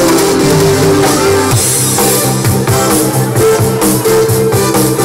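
Live band playing an instrumental dance tune: a moving bass line, guitar and a steady drum beat, with no singing.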